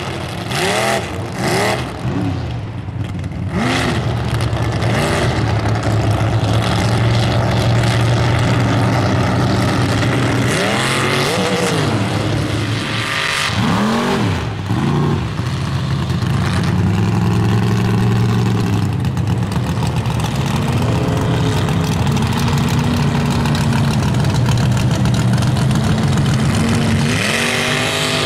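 Engines of 1000-plus-horsepower mega mud trucks revving hard as they power through a mud pit, the pitch surging up and down. There are quick rev blips in the first few seconds, two big swells around the middle, a long steady high-rev pull, and another rising rev near the end.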